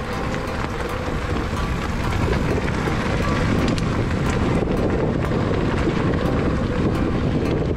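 Wind buffeting the action-camera microphone and the tyres of a mountain bike rolling down a gravel track, growing louder about two seconds in as the bike picks up speed. Scattered clicks and rattles come from stones and the bike.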